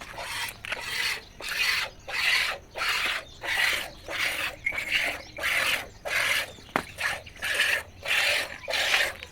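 Cow being milked by hand, the milk squirting into a pail in a steady rhythm of short rasping strokes, about one and a half a second.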